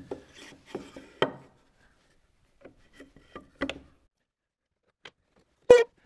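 Wooden workpiece and tenon jig parts being handled and adjusted on a table saw: scattered wooden knocks, clicks and rubbing, with one sharp, loud clack near the end.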